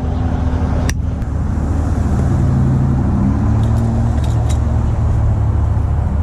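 Truck engine running steadily, its pitch shifting about two seconds in. A single sharp click sounds about a second in.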